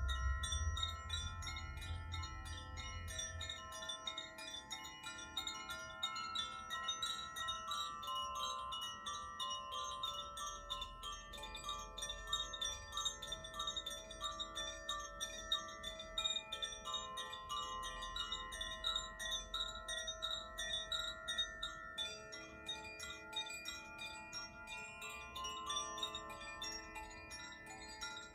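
Tuned sound-healing wind chimes of the Koshi and Zaphir kind rung continuously: many overlapping bell-like notes ringing on over a constant quick tinkle of strikes, the held notes shifting to new pitches as it goes.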